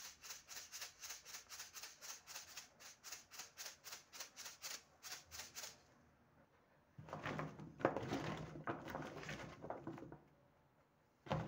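Salt shaker shaken over raw cut potato sticks, a steady rattle of about four shakes a second that stops about six seconds in. Then a hand tosses the raw potato sticks in the tub to mix in the salt.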